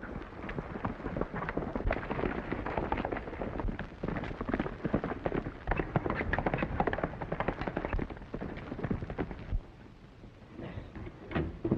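Hoofbeats of several horses galloping: a dense, irregular patter of thuds that drops away about nine and a half seconds in.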